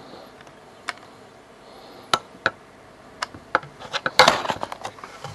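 Handling noise: scattered sharp clicks and knocks, a few seconds apart at first, then a quick run of clicks and a brief clatter about four seconds in.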